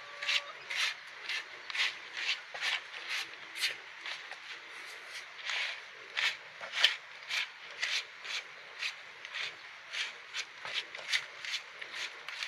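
A hand stirring and rubbing a dry bran mixture in a plastic tray: scratchy, rustling strokes at about two a second.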